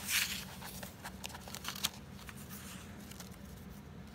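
Pages of a handmade paper journal being turned and handled: a short paper rustle at the start, then a few light taps and flicks of paper, the sharpest a little under two seconds in. A low steady hum runs underneath.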